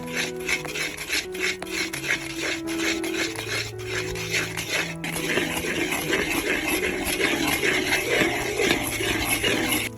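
Rhythmic rasping or scraping strokes, roughly two to three a second, becoming a denser, continuous scraping about halfway through, over soft background music.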